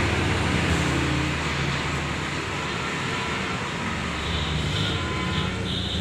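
A machine running steadily with a low hum under a noisy rush, with a higher whine coming and going in the second half.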